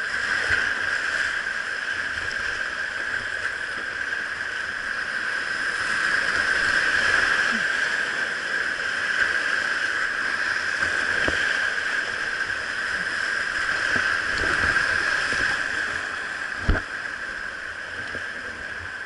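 Rushing whitewater on a river, a steady loud hiss of moving water, with a few short knocks and one sharp thump near the end.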